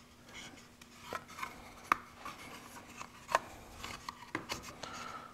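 Small clicks and scrapes as parts are handled and fitted in a Remington 1100 shotgun's forend, with sharper clicks about two and three and a half seconds in.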